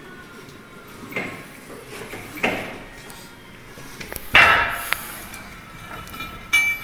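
Heavy metal parts knocking and clanking several times; the loudest knock comes about halfway through, and a ringing metal clink follows near the end.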